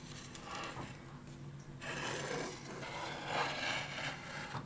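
Hands shifting chunks of hot-smoked pike on a plate: three or four short bouts of dry rubbing and scraping, over a faint steady low hum.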